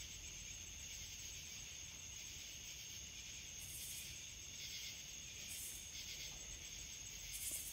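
Steady night chorus of crickets and other insects: a continuous high trill over a hiss, with three short bursts of higher hiss. Underneath is a faint low hum, which the listeners take for a distant plant or factory.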